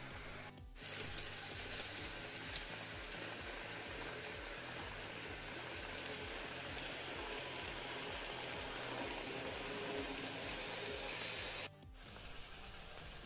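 GreenMax N-scale Tokyu 5050-4000 series model train running on the track close by: a steady whirring, rattling run of motor and wheels over the rails. It starts about a second in and cuts off abruptly near the end.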